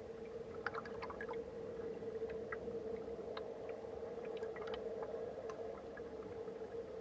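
Muffled underwater sound picked up through a submerged camera housing in a river current: a steady hum over a low rushing noise, with scattered small clicks and ticks.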